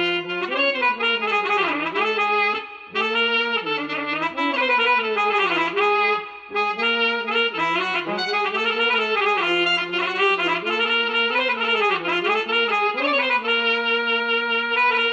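Solo instrumental melody in a brass-like tone, one line of notes sliding up and down between held pitches, with short breaths or breaks about 3 and 6.5 seconds in.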